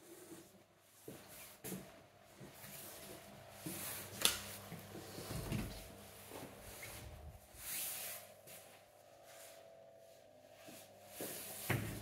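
An interior door being handled and swung open, with several clicks and knocks from its handle and latch over a rustle of handling; the sharpest click comes about four seconds in, another near the end.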